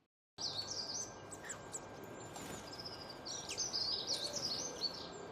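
Small birds chirping and twittering in quick high whistled notes over a steady outdoor background hiss, starting suddenly just after the start and busiest around the middle.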